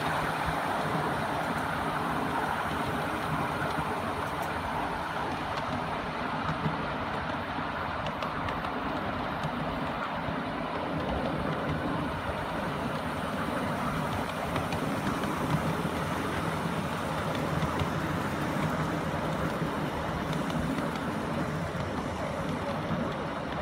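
7¼-inch gauge miniature railway train running steadily, its steel wheels rumbling and clattering along the track, heard from the passenger cars behind a live-steam Britannia locomotive.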